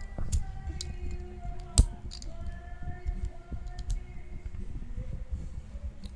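Small plastic Lego pieces clicking and clattering as they are handled, a string of light clicks with one sharp, loud click just under two seconds in.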